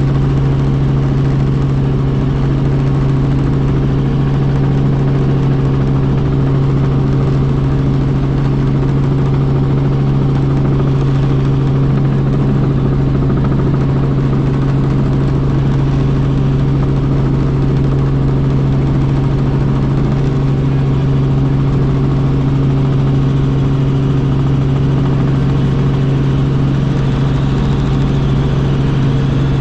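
Robinson R44 Raven II helicopter in steady flight: its six-cylinder piston engine and rotors drone at a constant pitch, a strong low hum with several steady tones above it.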